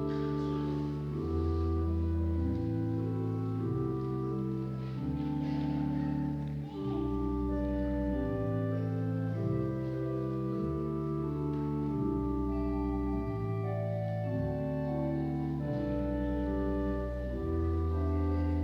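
Church organ playing slow, sustained chords over a held bass line, the harmony changing every second or two.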